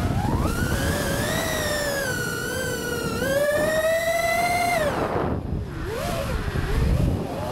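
FPV quadcopter's brushless motors whining. The pitch climbs and wavers with the throttle, then rises steadily before falling away sharply about five seconds in as the throttle is cut. A lower whine swells again near the end.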